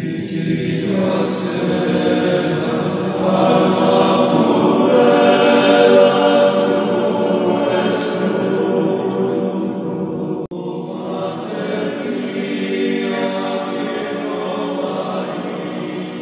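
Choral chant: a choir of voices holding long sung notes, with a brief break about ten seconds in.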